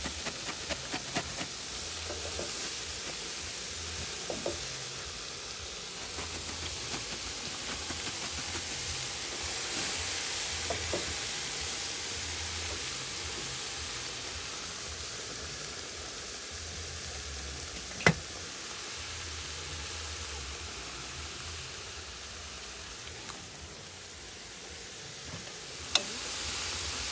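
Shredded cabbage sizzling in a pot on the browned onions: a steady frying hiss. Two sharp clicks, one about two-thirds of the way through and one near the end.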